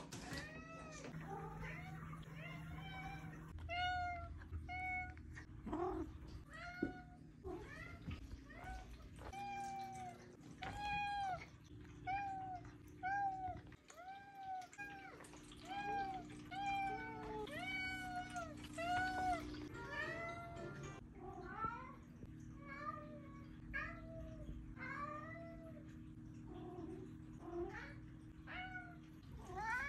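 Domestic cat meowing over and over: short meows that rise and fall in pitch, about one a second, with a steady low hum underneath.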